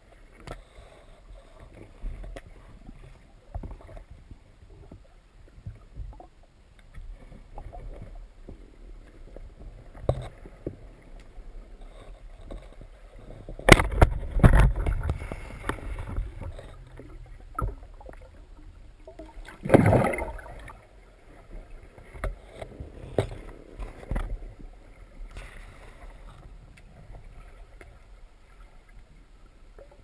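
Underwater sound picked up by a diver's camera: water moving past the housing with scattered clicks and knocks. There is one sharp, loud knock about 14 seconds in, followed by a couple of seconds of churning noise, and a short rushing burst about 20 seconds in.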